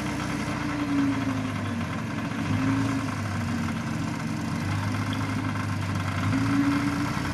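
Diesel dump truck engine running while its hydraulic hoist raises the tipper bed to dump a load of soil; the engine speed rises and falls a few times.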